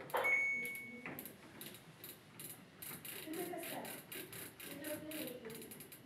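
Samsung front-loading washing machine's control panel gives one high electronic beep about a second long, then its rotary program dial clicks through its detents as it is turned.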